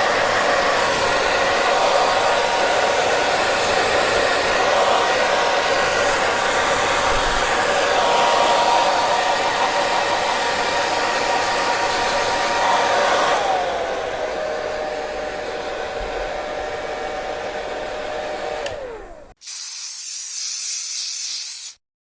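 Hair dryer blowing, its motor whine dropping to a lower pitch about two thirds of the way in, then switched off and winding down. A short hiss follows near the end.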